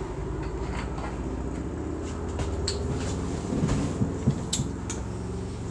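A steady low hum underneath a few light clicks and knocks of small plastic items being handled, the sharpest clicks coming in a quick cluster past the middle.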